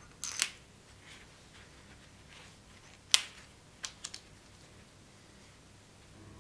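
Sharp metal clicks and taps of a steel rod and tool knocking against a small squared steel pommel block as it is fitted together by hand. There are two clicks near the start, a louder single click about three seconds in, and three quick ones just after.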